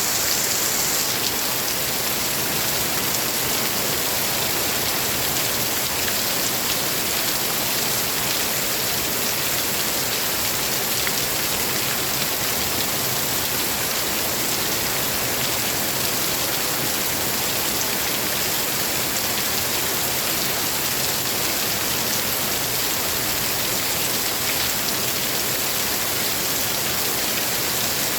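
Steady, heavy rain falling as a dense, unbroken hiss with many fine drop patters.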